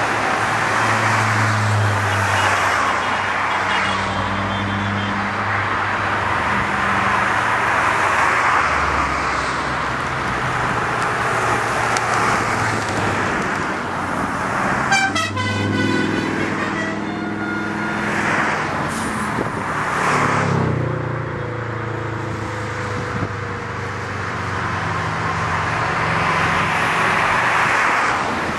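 Cars, vans and a pickup truck passing one after another on a main road, engine and tyre noise swelling and fading as each goes by. About halfway through, a vehicle horn toots for a couple of seconds.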